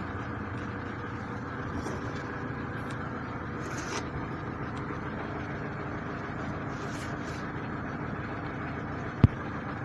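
Light handling sounds of wiring being fastened on a hydraulic power pack: a few faint scrapes and one sharp click about nine seconds in, over a steady background hum.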